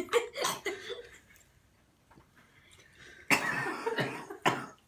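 A woman coughing and clearing her throat to dislodge locust wings stuck in her throat. A few short coughs come right away, then a louder bout about three seconds in and one more near the end.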